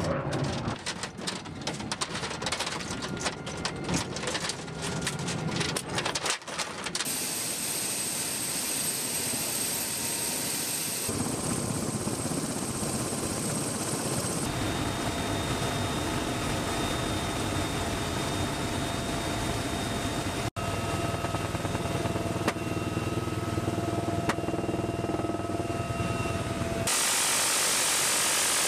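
Metallic clicking and clinking of a linked ammunition belt being handled, then a UH-1Y Venom helicopter running on the ground: steady turbine whine with rotor noise. Near the end, a sudden loud continuous roar of a six-barrel minigun firing.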